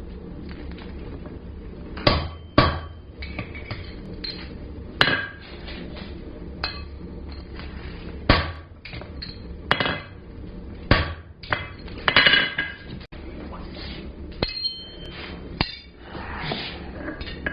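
Hand hammer striking a punch on hot steel bar, starting a screw hole: about a dozen sharp metallic blows at an uneven pace, roughly a second or two apart, over a steady low hum.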